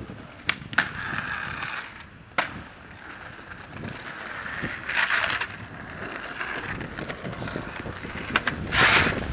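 Skateboard wheels rolling over stone paving, with a few sharp clacks of the board in the first few seconds and two louder rushes of noise, about five seconds in and near the end.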